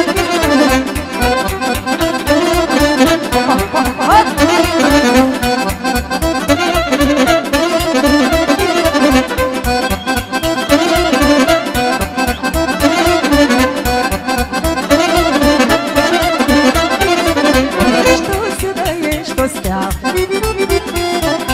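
Instrumental Romanian party music (muzică de petrecere) from a folk band, with accordion carrying the melody over a steady, driving bass beat.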